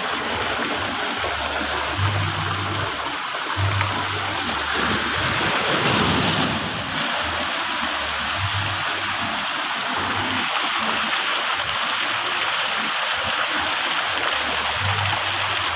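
Pool fountains and water jets splashing steadily into a shallow pool, a continuous rushing, splattering noise that swells a little around the middle.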